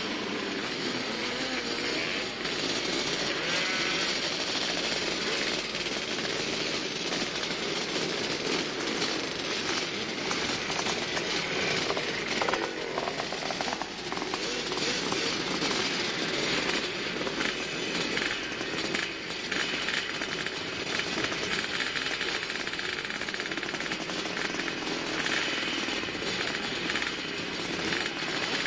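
A full line of two-stroke motocross bikes running and revving together at the starting gate, a dense, rattly din of many engines blipping their throttles.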